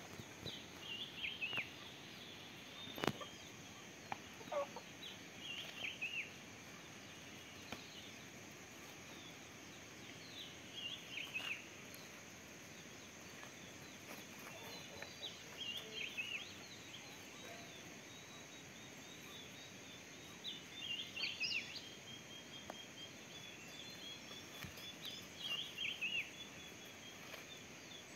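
Short chirping bird calls, a few quick notes at a time, recurring about every five seconds over a steady high insect drone. One sharp knock about three seconds in.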